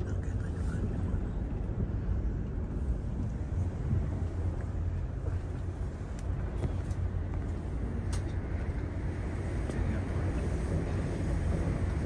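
Steady low rumble inside a moving cable car cabin as it rides along its cable, with a couple of faint clicks about six and eight seconds in.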